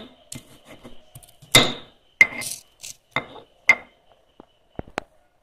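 Pestle knocking against a flat stone mortar (cobek) as garlic, salt and coriander seed are crushed: a handful of sharp, irregularly spaced knocks, each with a short ring.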